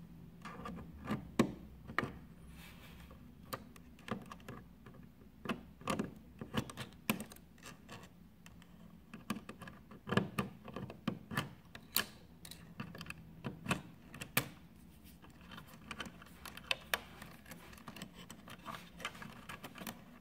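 Irregular clicks and small clacks of needle-nose pliers gripping and pulling crimped spade connectors off a coffee machine's power board, with the wires and plastic housing knocking.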